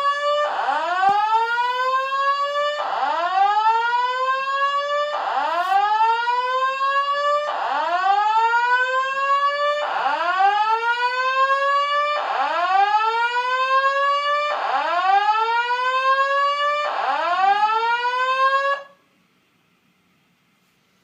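Electronic alarm sounding a repeated rising whoop, each sweep climbing quickly and levelling off over about two seconds, then cutting off suddenly near the end.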